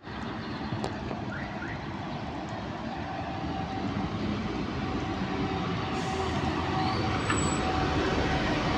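LiAZ 5292.65-03 city bus approaching and pulling in alongside, its engine and tyre noise growing steadily louder, with a steady whine from about three seconds in.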